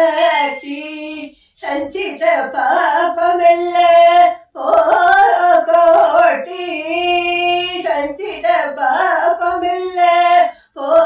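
An elderly woman singing an Indian classical song solo, her voice gliding and bending through ornamented phrases. The line breaks briefly about a second and a half in and again near halfway, and she holds one long steady note about seven seconds in.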